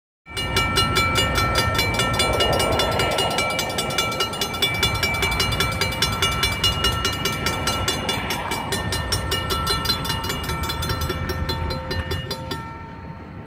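Railroad grade-crossing warning bell ringing rapidly and steadily, about four strikes a second over a low rumble, cutting off abruptly near the end.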